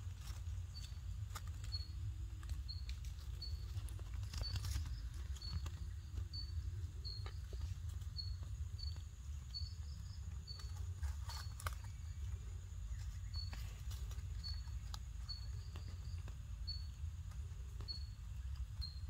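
Forest ambience: a short high chirp repeating about every three-quarters of a second, over a steady low rumble, with scattered light crackles of dry leaves and twigs as a baby macaque moves about in the leaf litter.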